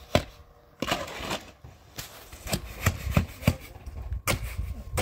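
A series of sharp knocks or blows, irregularly spaced and coming two or three a second at times, with brief gaps between clusters.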